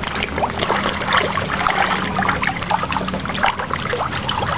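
Fish splashing and churning at the surface of a pond: a dense run of quick small splashes and water slaps.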